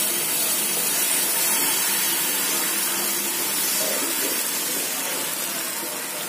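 Egg omelette batter with chopped vegetables sizzling steadily as it is poured onto a hot oiled flat griddle (tawa) and spread out, the hiss easing slightly near the end.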